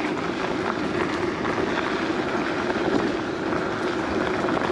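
Gotrax GX1 dual-motor electric scooter riding over hard-packed gravel: a steady rumble and crunch of the tyres rolling over stones, over a constant low hum.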